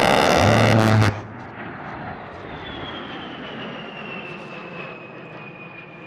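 A-10 Thunderbolt II's GAU-8 Avenger 30 mm rotary cannon firing one loud buzzing burst that cuts off suddenly about a second in. The jet's turbofan engines then run on with a whine that slowly falls in pitch as the aircraft passes.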